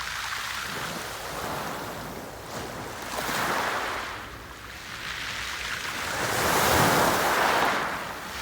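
Sea waves breaking and washing in, heard as surging surf noise. A smaller swell about three seconds in is followed by a louder one near the end.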